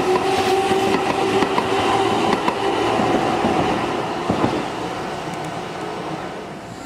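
Keihan electric train running past with a steady whine and clicking wheels over rail joints, then fading away over the last few seconds.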